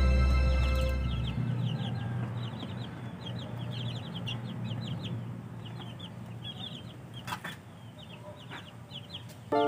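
Baby chicks peeping: many short, high chirps, overlapping and repeating quickly. Background music fades out in the first second or so, there is a single knock about seven seconds in, and music comes back in near the end.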